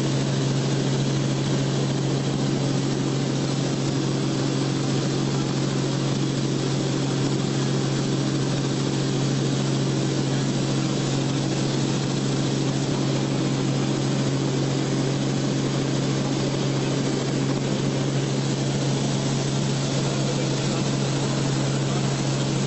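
Aircraft engine and propeller drone heard from inside the cabin: a steady, unchanging hum with a low tone and a hiss of air noise over it.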